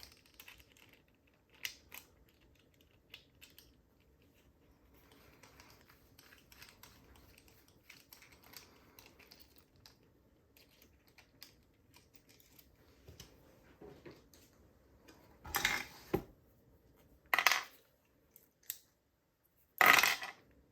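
Screwdriver working on the metal parts of a Mul-T-Lock Junior padlock: faint small clicks and scraping, then three louder sharp metallic knocks in the last few seconds.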